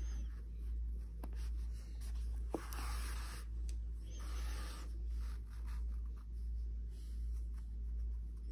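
Yarn being drawn through plush chenille crochet fabric with a yarn needle: a few short rustling swishes and a small click, over a steady low hum.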